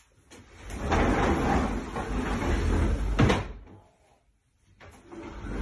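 The pull-out lower frame of an IKEA Hemnes daybed being pushed closed, sliding across the floor for a couple of seconds and ending in a sharp wooden knock about three seconds in. A second sliding sound starts near the end.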